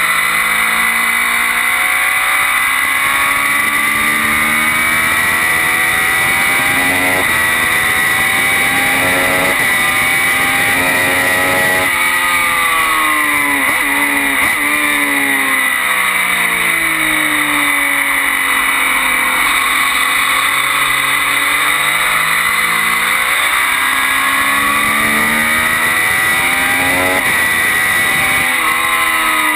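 Triumph Daytona 675's three-cylinder engine at track speed, revs climbing and dropping again and again as it shifts through the gears and brakes for corners, over constant wind rush.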